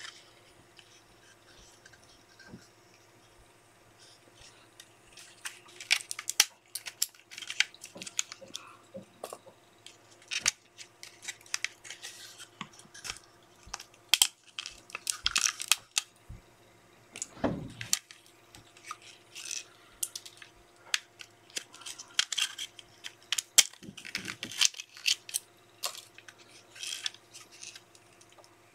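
Support material being picked and snapped off a 3D-printed Rock PLA skull: irregular sharp plastic clicks, cracks and scraping that start about five seconds in.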